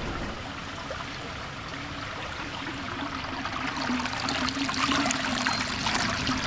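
Fountain water running and splashing around a spiral metal sculpture, a steady rushing hiss that grows louder and splashier about two thirds of the way in.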